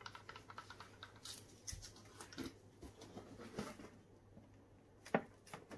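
Faint scattered rustles and small clicks of gloved hands handling a balloon on a freshly poured acrylic canvas, with a sharper click about five seconds in.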